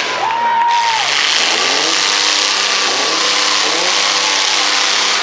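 Demolition-derby mini pickup truck engines revving up and down over a steady rushing noise, with a short held high note from one engine about half a second in.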